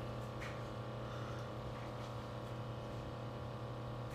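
Keurig K-Elite coffee brewer heating its water after power-on: a quiet, steady hum. This is the heating sound that stops once the brewer is ready.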